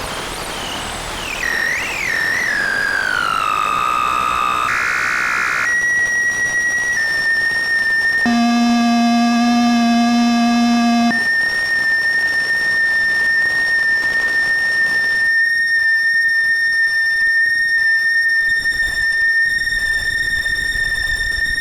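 Arturia Buchla Easel synthesizer making electronic tones. A wavering tone glides downward over the first few seconds, then steady held tones follow, with a fuller, lower tone from about eight to eleven seconds. It settles into one long, steady high tone.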